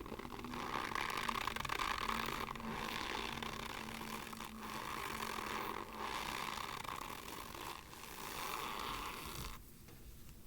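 Dry Argo cornstarch squeaking and crunching as it is pressed and worked, in about five long strokes with short breaks between them, stopping shortly before the end.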